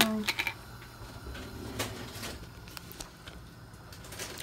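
Phone camera being handled, with a low rumble and a few light clicks and taps, most of them in the first half-second.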